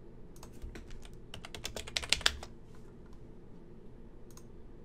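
Typing on a computer keyboard: a quick run of keystrokes over about two seconds, then two more clicks near the end.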